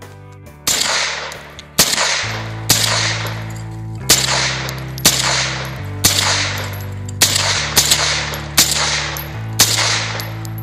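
9mm JR Carbine firing about ten shots in a row, roughly one a second, each crack trailing off in an echo. The carbine fires every round without jamming, fed from a Glock-made 9mm magazine. Background music plays underneath.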